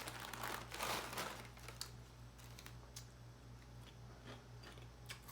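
Kettle-cooked potato chips being bitten and chewed: dense crunching in the first second and a half, then scattered single crisp crunches.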